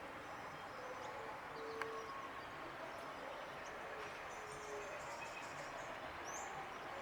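Steady outdoor background noise with a few faint, brief bird chirps, and a single sharp click about two seconds in.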